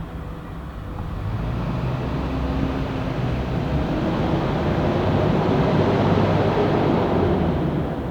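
A big truck passing by: its engine hum and tyre noise grow steadily louder, are loudest about six seconds in, then fall away near the end as it goes past.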